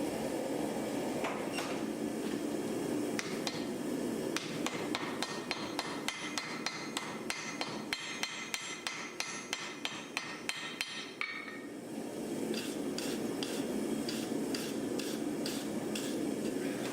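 Blacksmith's hammer striking hot iron on an anvil during hand forging, about three ringing blows a second, with a short pause just past the middle before the strikes resume more slowly. A steady low rushing noise runs underneath.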